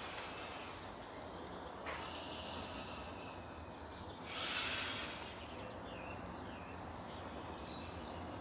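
Faint steady background noise, with a brief rushing hiss lasting about a second near the middle and a couple of faint chirps soon after.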